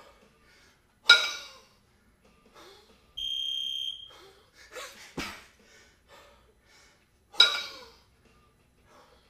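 A pair of 22 kg kettlebells worked in jerks. Twice the bells drop from overhead back into the rack position with a loud metallic clank and short ring, and a sharp knock with a hard exhale marks the drive overhead about five seconds in. An electronic beep lasting about a second sounds near the middle, with heavy breathing between reps.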